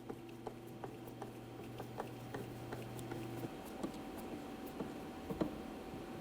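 Faint, irregular small clicks of a T20 Torx driver being turned by hand to snug down the screw that holds the door handle in the door.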